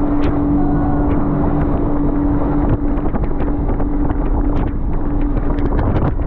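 Motorboat running fast: a steady engine hum under the rush of spray and wind on the microphone, with sharp splash ticks that come thicker near the end.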